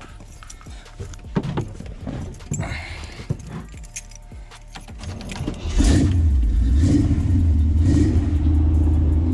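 Keys jangling with scattered clicks and knocks, then about six seconds in the Jeep CJ-7's engine starts and runs with a steady low rumble.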